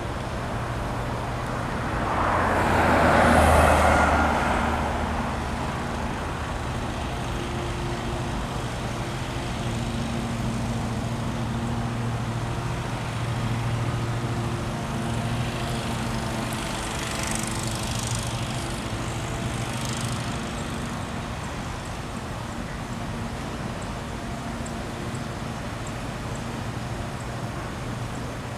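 A steady low engine drone, with a vehicle passing by about three seconds in, swelling and fading.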